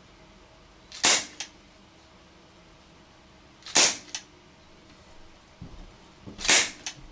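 HFC HG132 propane-powered airsoft revolver firing three double-action shots about two and a half seconds apart. Each is a sharp pop followed a moment later by a lighter click, with a few faint mechanical clicks just before the third shot.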